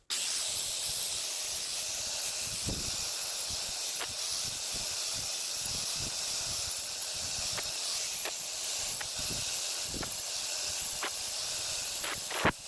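Angle grinder grinding the edges of steel repair patches: a steady, high-pitched hiss that starts abruptly and cuts off near the end.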